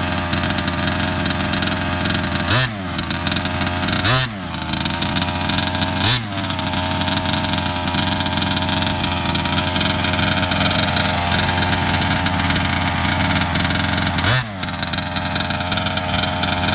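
Redcat Rampage 1/5-scale RC truck's two-stroke gas engine idling through a tuned pipe, with four quick throttle blips where the pitch jumps up and drops straight back to idle: three in the first six seconds and one more near the end.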